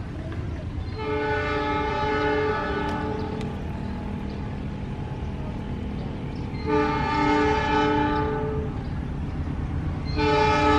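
Horn of an approaching CC206 diesel locomotive sounding three blasts of about two seconds each, a steady chord of several tones, the last starting near the end and louder, over a low steady rumble.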